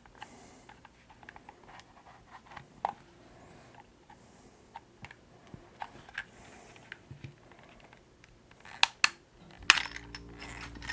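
Small plastic clicks and taps as plastic pry tools work along the seam of an Xbox Elite 2 controller's shell, with a few sharper snaps near the end as its clips pop loose. A low steady hum comes in near the end.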